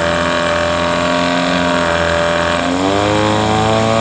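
9.9 hp Mercury outboard motor running steadily, then revving up to a higher, held speed about two and a half seconds in. It runs well, its starting trouble traced to an old, rotted fuel line rather than the carburettor.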